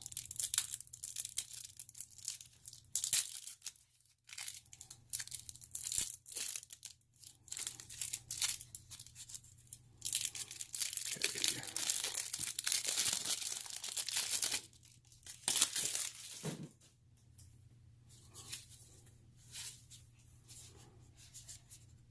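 Packaging being torn open and crinkled by hand as game components are unwrapped. There are short, scattered rustles, a longer stretch of tearing and crinkling from about ten to fifteen seconds in, and fainter handling noises near the end.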